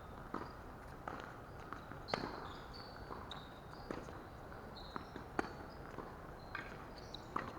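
Tennis rally: sharp hits of racket and ball bouncing on the court, one every second or two, with footsteps and brief high shoe squeaks between them.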